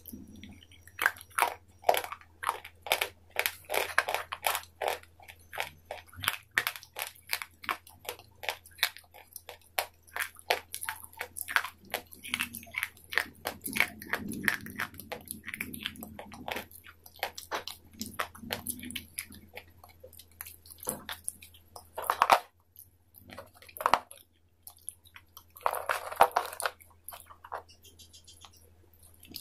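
Close-up crunching and chewing of dry, brittle white sticks: a fast run of crisp crunches for most of the time, then a few separate louder bites near the end.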